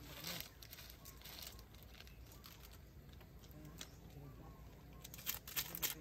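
Packaging being handled and torn open by hand: crinkling and tearing with scattered sharp clicks, growing into a quick cluster of louder clicks and taps near the end.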